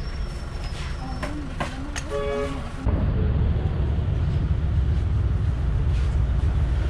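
A few light clinks of a spoon against a ceramic bowl and plastic tub as noodle soup is served. Then, about three seconds in, a sudden switch to a steady low rumble.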